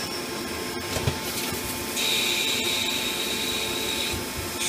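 Nakamura-Tome TW-10MM CNC lathe cutting under flood coolant: a steady hiss of coolant spray and machining. About two seconds in, a high steady whine joins for about two seconds, then drops out.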